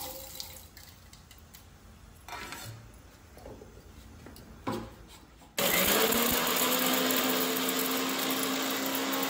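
An electric mixer grinder switches on about halfway through and runs with a steady whir, grinding dry-roasted whole spices into garam masala in its small steel jar. Before it starts there are a few light clinks and taps as the spices are tipped into the jar and the lid is fitted.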